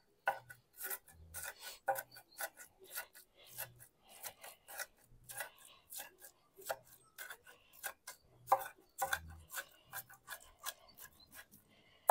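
A blade repeatedly chopping and scraping through a pile of cooked beef patty, cheese and chopped vegetables, making short irregular strokes about two or three times a second.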